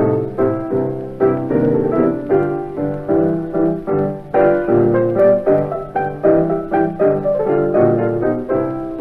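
Piano music: a continuous run of quick notes, several a second.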